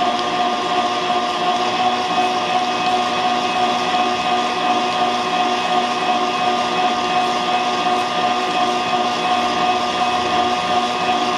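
Stand mixer running steadily at high speed, a constant whine of several tones, its wire whisk beating a thin egg-and-oil cake batter to blend in the milk and vanilla just added.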